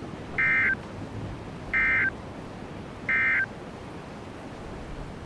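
Emergency Alert System end-of-message data signal: three short, identical bursts of digital data tones a little over a second apart, marking the end of the alert.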